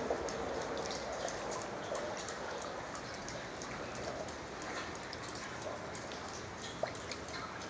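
Water dripping in an ice cave: many small scattered drips over a steady rush of water.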